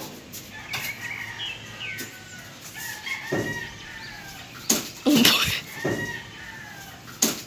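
Chickens clucking and crowing at intervals. Several sharp knocks and slaps come from a trowel working cement mortar against the hawk and the block wall; the loudest is about five seconds in.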